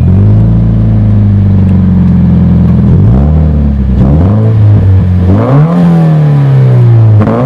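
2013 Scion FR-S's 2.0-litre flat-four engine heard at the exhaust, idling steadily, then revved in short blips about three and four seconds in, a longer rev that rises and falls about five seconds in, and another blip near the end.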